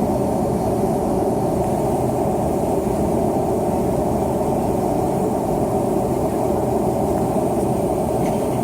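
Steady cabin noise of a McDonnell Douglas MD-88 in flight under power: a constant low rumble and rush from its rear-mounted Pratt & Whitney JT8D turbofans and the airflow, heard from inside the cabin.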